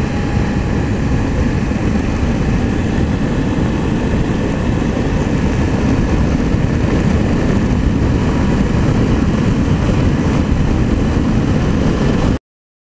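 Wind rumble on the microphone mixed with the engine of a Can-Am Spyder RT three-wheeler (Rotax 1330 inline three-cylinder) cruising at road speed and gathering speed, a steady low rumble. It cuts off suddenly near the end.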